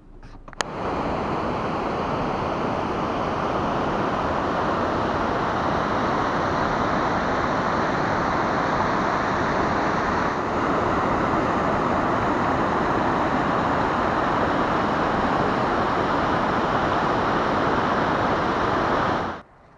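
Steady rush of a flooded river pouring over rapids and a low dam spillway. It starts suddenly about half a second in, steps up slightly about halfway through, and cuts off just before the end.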